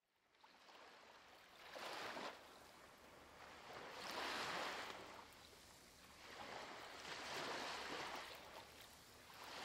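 Faint ocean surf, waves washing in and drawing back in slow swells that rise and fall about every two to three seconds.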